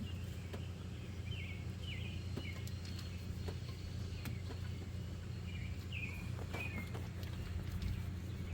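Small birds chirping in two short runs of quick chirps, over a steady low background hum, with a few faint clicks.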